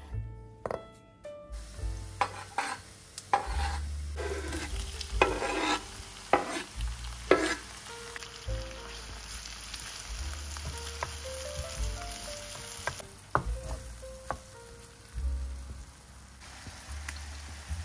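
A few knife chops on a wooden cutting board. Then diced tomato goes into hot oil with frying onion and garlic, giving several loud sizzling flares, and settles to a steady sizzle as a wooden spatula stirs and knocks in the pan.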